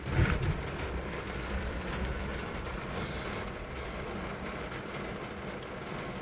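Steady rumble and hiss of a car in motion, heard from inside the cabin.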